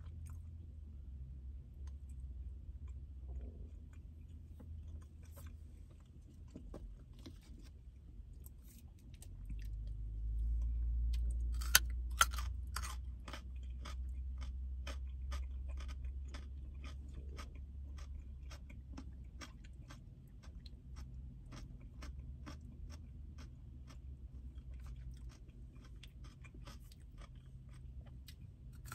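Close-up chewing of raw baby carrots: crisp crunches in a steady rhythm, at their loudest about twelve seconds in. A low rumble swells up about ten seconds in and fades away over the following ten seconds.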